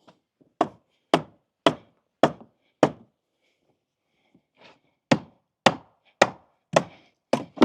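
Hammer blows on wooden deck boards while the deck is being taken apart, each a sharp knock about two a second. One run of five blows, a pause of about two seconds, then a second run.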